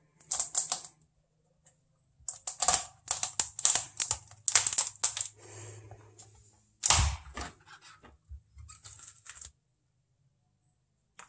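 A spaghetti squash being pried apart by hand on a plastic cutting board: runs of sharp cracking and tearing clicks from the rind and flesh, with one heavy knock about seven seconds in, then a few lighter clicks.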